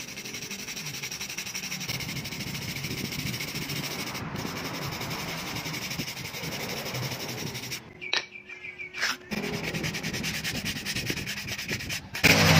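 Brass wire brush scrubbing the fibrous husk of a coconut in quick back-and-forth strokes, a steady scratchy noise that breaks off briefly a little past halfway.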